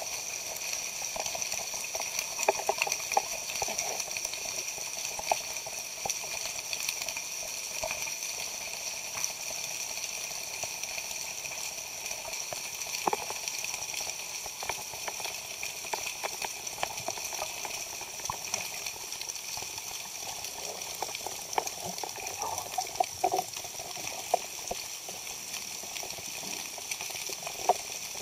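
Underwater ambience picked up by a camera in a waterproof housing: a steady hiss with scattered sharp clicks and short higher blips.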